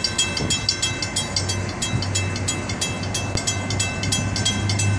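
Railroad grade-crossing warning bells ringing in a fast, even series of strokes as the crossing gates lower, signalling an approaching train. A low steady hum runs underneath.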